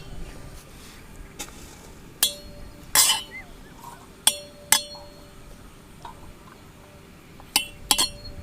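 Metal cookware clinking: about six sharp clinks, spread out, a couple of them ringing briefly, as utensils knock against a cooking vessel while the biryani is layered.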